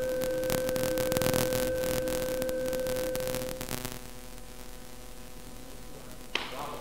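Choir and orchestra holding a sustained chord, with crackling static over it, that dies away about four seconds in. Then low hiss and one sharp click near the end.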